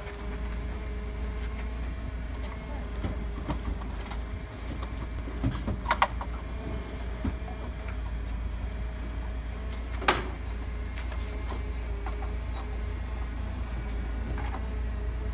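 Forklift running steadily with a constant hum and whine, and a few sharp knocks about six and ten seconds in from the heavy wooden cabinet being shifted on its wheeled dolly.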